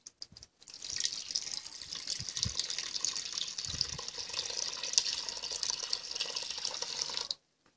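Curdled milk, whey and curds together, poured from a metal pot into a cloth-lined bowl: a steady splashing pour that stops suddenly near the end. This is the curds being strained through cloth to separate them from the whey.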